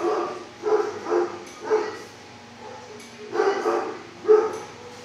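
Dogs barking in a shelter kennel: about seven short barks, four in the first two seconds, then a pause, then three more a little past the middle.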